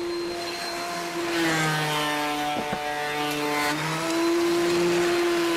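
Benchtop thickness planer running steadily. About a second in, its motor drops in pitch and gets louder as a board feeds through and is cut. The motor climbs back to its free-running speed just before four seconds.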